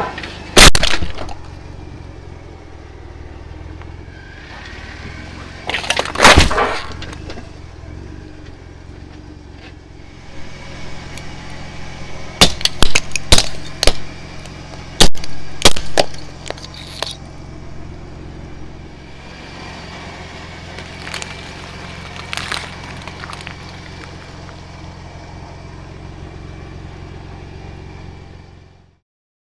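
A truck's engine running low and steady while its large off-road tire rolls over and crushes objects. There is a loud crack about half a second in and another crunch around six seconds. Then comes a quick string of sharp plastic cracks about twelve to sixteen seconds in as hollow plastic toys break under the tire.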